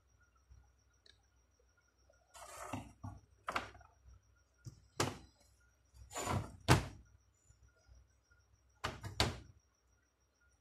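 Knocks and thuds as a Lexus LS 430 alternator is handled and turned over on a concrete floor during reassembly. A longer scraping knock comes about two seconds in, then single knocks, and a quick pair of knocks near the end.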